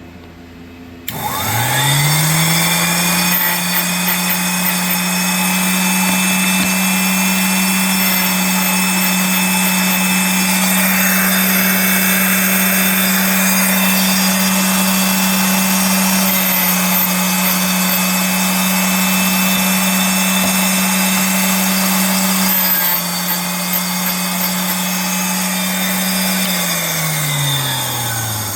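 SRD drill grinder's 1/4 hp electric motor switched on about a second in, spinning up to a steady hum, with the grinding wheel rasping as a worn 1/2-inch drill bit is passed across it. Near the end the motor is switched off and winds down with a falling hum.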